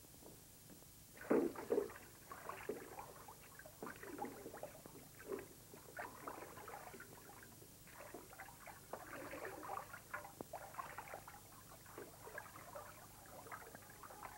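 Small wooden boat being boarded and moved off from a landing: irregular wooden knocks and creaks with water sloshing, loudest a little over a second in.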